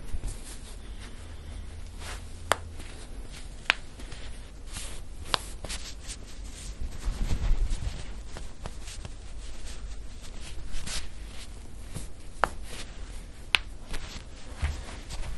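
Rubbing and shuffling of hands, cloth and feet as a patient's foot is gripped and positioned on a chiropractic table. A few sharp isolated clicks are scattered through it, and there is a dull low bump a little past halfway.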